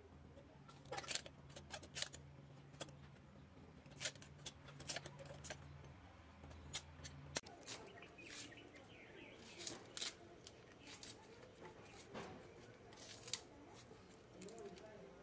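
Scattered sharp clicks and snips of a curved hand-held iron knife slicing jackfruit seeds. After a cut, softer scraping and clicking of the blade peeling and cutting a shallot, with faint bird chirps in the background.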